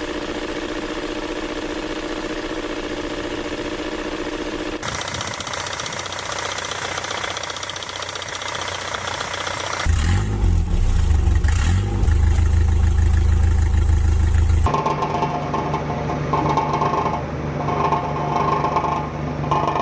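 Car engine noises in a run of separate short clips that change abruptly about every five seconds: steady whining tones, then a deep rumble, then a tone that cuts in and out.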